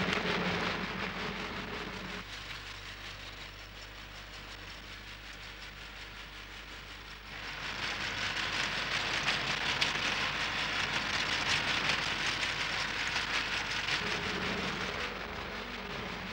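Motor vehicle driving on a sandy desert track: a low steady engine drone under a rushing hiss of wind and tyres. The hiss jumps louder about seven seconds in.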